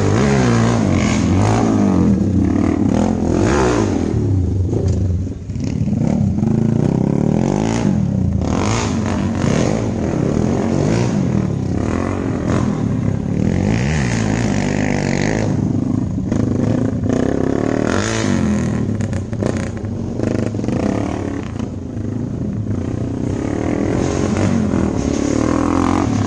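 Off-road motorcycle engines revving and easing off again and again, with scattered short knocks.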